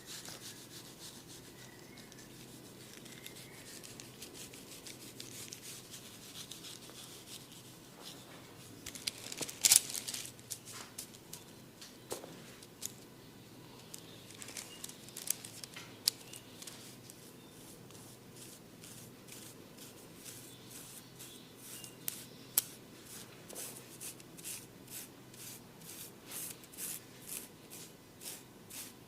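Close-miked head massage: hands rubbing and scratching through hair and over the scalp, full of fine crackles. There is one sharp loud click about ten seconds in and a few lighter clicks later. Near the end come rhythmic strokes about twice a second.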